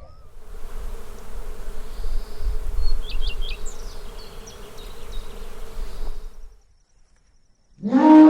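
A steady droning buzz over a low rumble, with a few short high chirps in the middle, stops about six and a half seconds in. After a second of silence, an elephant call starts loudly near the end, rising at first.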